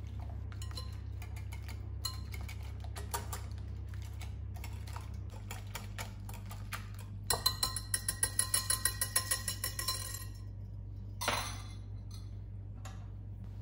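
Wire balloon whisk clicking and scraping against a glass mixing bowl as it beats a lumpy batter. Scattered strokes at first, then about halfway through a faster run of about five strokes a second for a few seconds.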